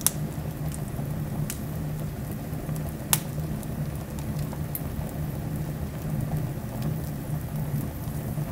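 Split logs burning in a fireplace: a steady rush of flames with several sharp crackles and pops from the wood, the loudest near the start and about three seconds in.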